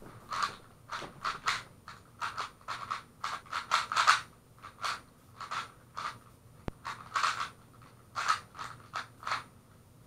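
Rubik's cube being turned at speed during a speedsolve: fast runs of plastic clicking and clacking as the layers snap round, in quick bursts with short pauses between, stopping near the end. Heard through a waterproof camera housing.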